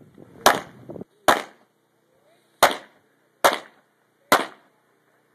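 Pistol shots: five sharp reports about a second apart, with a slightly longer pause after the second, and a sixth right at the end.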